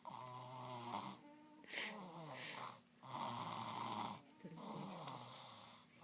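A three-year-old girl snoring in a steady rhythm of rasping breaths, each about a second long, with a short hissing breath about two seconds in.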